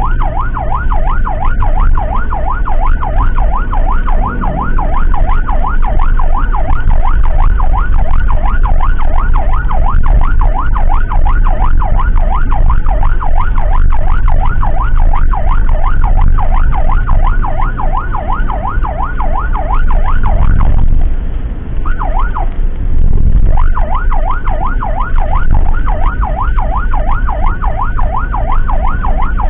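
Electronic emergency siren in a fast yelp, sweeping up and down about three to four times a second over the low rumble of a vehicle on the road. A little past two-thirds through it cuts out, gives one short burst, then resumes.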